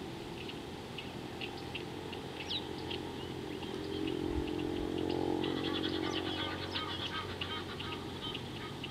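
Small birds chirping and twittering, the chirps coming thicker in the second half, over a steady outdoor background. A low droning hum swells and fades in the middle.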